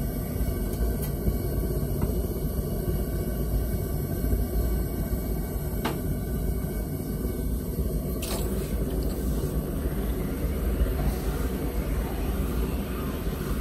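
Gas-fired forge burner running with a steady low rumble while a steel rod heats in it. About eight seconds in there is a knock, then a hissing haze as the red-hot 1045 steel rod is quenched in water to harden it.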